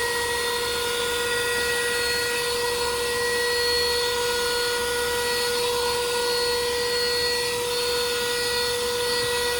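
Portable corded car vacuum cleaner running steadily, a high motor whine over the rush of air, as it sucks dust from a car floor mat.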